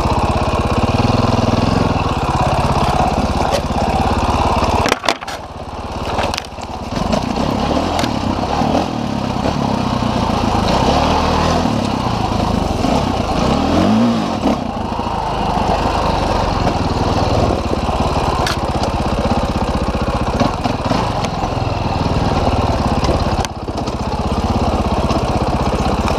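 Dirt bike engine running under changing throttle while riding a rocky trail, its revs rising and falling. The engine noise drops briefly about five seconds in, then picks up again.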